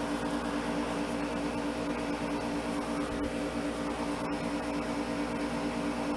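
Steady mechanical hum with a constant low drone, unchanging throughout.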